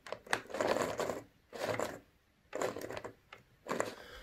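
Small electric motor of a Lima Class 156 model DMU power car whirring in about four short, uneven bursts with gaps between them. The model is running only fitfully: the motor has life, but the unit needs a good service.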